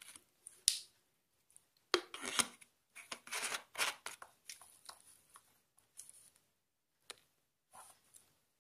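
Hands fitting a small plastic bottle water filter onto a plastic bottle's neck: irregular plastic scraping and rubbing with a few sharp clicks, the loudest about two seconds in.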